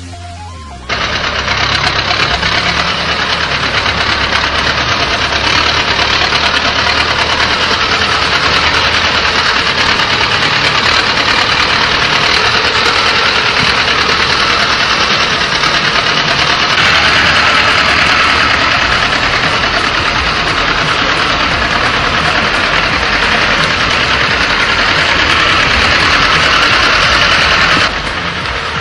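Heavy vehicle engine running loud and steady, starting abruptly about a second in and cutting off near the end.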